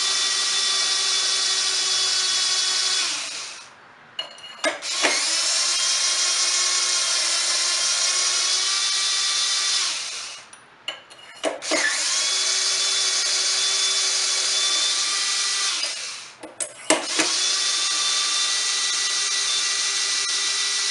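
Cordless drill spinning the four cylinder bolts out of a two-stroke blower engine. The motor whines steadily in four runs of a few seconds each, the first ending about three seconds in. Each run winds down at its end, with short clicks between runs.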